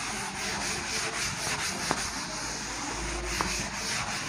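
A writing board being wiped with a duster in quick, even back-and-forth rubbing strokes, with two small knocks about two seconds and three and a half seconds in.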